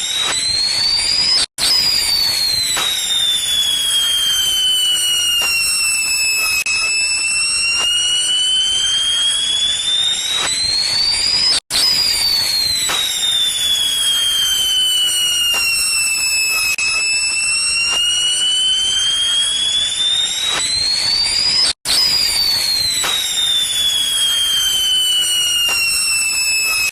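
A looped, high-pitched whistling sound effect, a steady tone with overtones over faint hiss. It glides down in pitch and back up again over about ten seconds. It drops out for a split second when the loop restarts, which happens three times.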